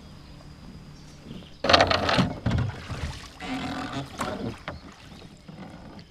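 Long wooden oars rowing a small rowboat: splashing strokes through the water, the loudest a little under two seconds in, with weaker strokes after it.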